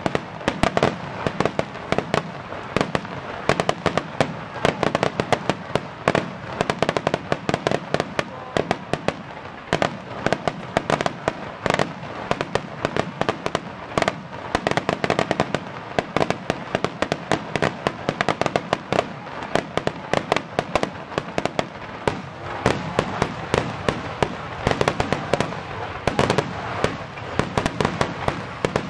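Starmine fireworks barrage: aerial shells firing and bursting in rapid succession, a dense unbroken run of sharp bangs and cracks, several a second.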